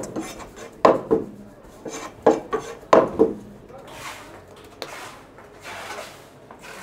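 A wide mincing knife knocking and scraping on a wooden butcher's block as minced lamb is worked on it, with a few sharp knocks in the first three seconds. After that, softer rubbing as a gloved hand presses and gathers the meat on the wood.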